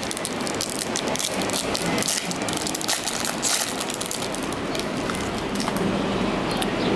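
Foil trading-card pack wrapper crinkling while cards are handled: a dense run of sharp crackles that thins out about halfway through, over a steady background hiss.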